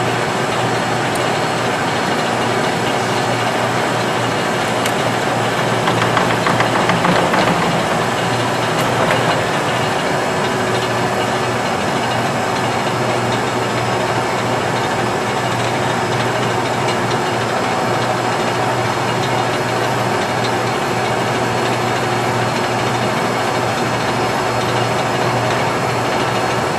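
Geminis GE 1200-5-3G heavy-duty engine lathe running: a steady mechanical hum of its drive and gearing, with a louder clattering stretch about six to nine seconds in.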